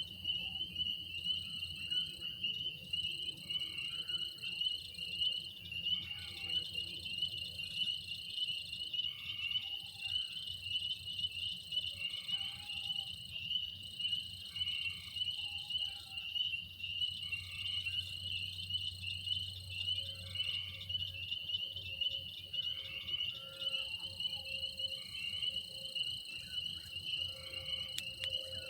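Night chorus of crickets and other insects trilling steadily, with higher insect songs coming and going in stretches of a few seconds, and frogs calling every second or two.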